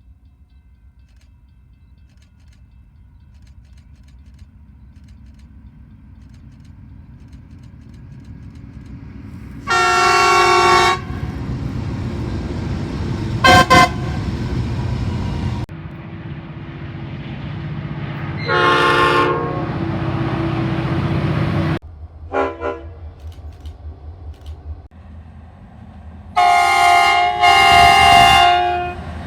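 Locomotive horns sounding over the rumble of trains: a low rumble builds as a train approaches, then comes a blast about ten seconds in, a short double toot, another blast, a brief toot, and two blasts near the end.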